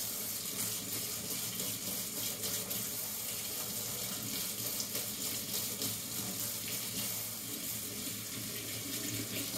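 Kitchen faucet running steadily into a stainless steel sink, the stream splashing over small die-cast parts being rinsed by hand.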